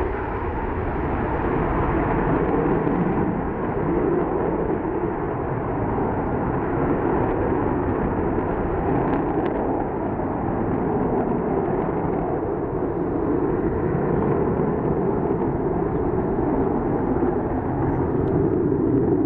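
Vickers VC10's four rear-mounted Rolls-Royce Conway turbofans at take-off power as the jet climbs away, a steady jet noise that holds without a break.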